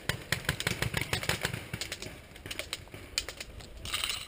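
Airsoft guns firing: a rapid, irregular run of sharp cracks, several a second, with a short hiss about four seconds in.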